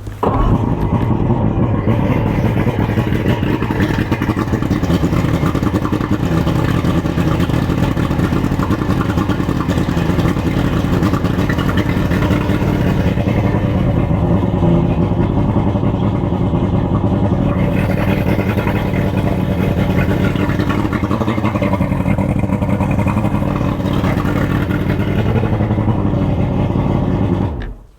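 Boat motor running steadily after starting up; it begins abruptly and cuts off just before the end.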